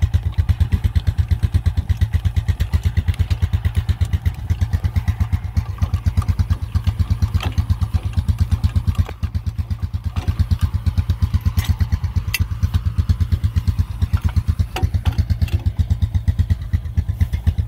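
Honda ATV's single-cylinder engine idling with a fast, even pulse. A few short metallic clicks from a trailer jack being hand-cranked and the hitch being handled.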